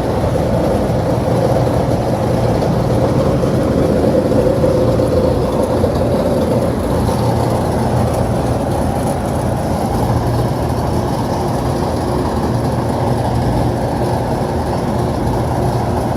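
Steady loud hum and whir of running HVAC machinery, with a low electrical drone underneath; a higher-pitched part of the whir fades about halfway through.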